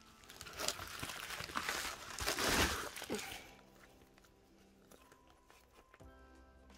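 Plastic packaging crinkling and tearing as an album's pre-order benefit packet is handled and opened. The rustle is loudest about two and a half seconds in and stops after about three and a half seconds, leaving faint background music.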